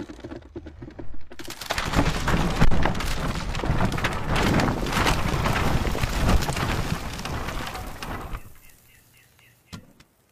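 Rockslide crashing down onto a wooden hut: a long rumbling crash of tumbling rock and breaking timber. It starts about a second and a half in and dies away after about eight seconds.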